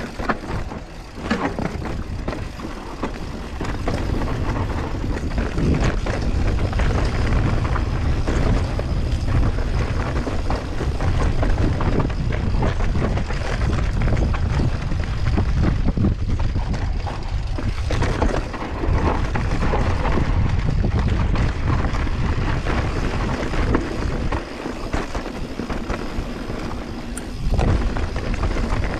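Mountain bike descending a rough dirt trail at speed: wind rushing over the microphone, tyres rolling over dirt, and the bike rattling and clattering over bumps. The noise swells and dips, with a brief drop about a minute in… rather, a short lull near the middle, around eighteen to nineteen seconds in.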